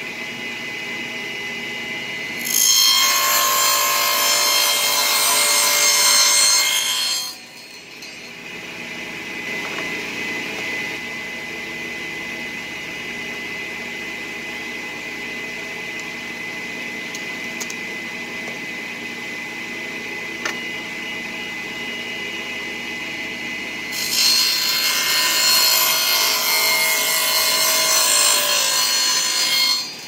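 Table saw running with a steady whine, cutting twice through a thin wooden board: a loud cut starting about two and a half seconds in and lasting about five seconds, and a second one near the end. Between the cuts the blade spins freely.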